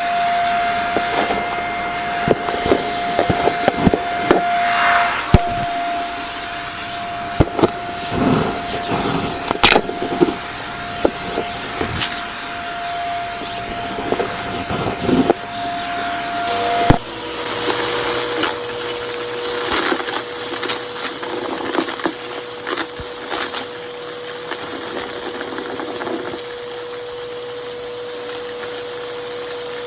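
Vacuum cleaner running with a steady motor whine while sucking up a dry, crunchy mess, the debris crackling and rattling up the nozzle in irregular clicks. A little past halfway the whine suddenly drops to a lower pitch and the crackling thins out.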